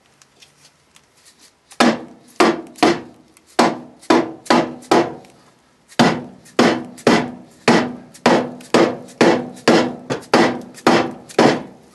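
Repeated hammer blows, about two a second, tapping the upper control arm of a 1974 Plymouth Duster's front suspension into its tight-fitting mount. Each blow leaves a short metallic ring. The blows start about two seconds in.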